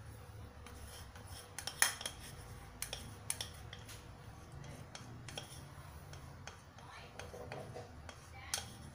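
A spatula scraping and tapping the cream container over a steel soup pot: scattered sharp clicks and knocks, the loudest about two seconds in, over a low steady hum.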